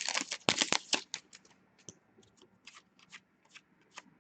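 Upper Deck hockey trading cards being flipped through and slid against each other by hand. The quick flicks come thick for the first second or so, then thin out to occasional single ticks.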